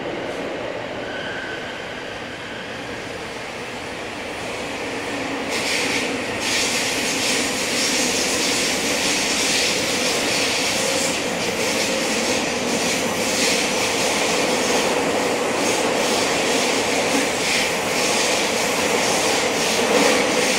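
A JR West 321 series electric train with a Hitachi IGBT inverter running on the underground JR Tozai Line. The wheel and rail noise grows louder and harsher about five seconds in.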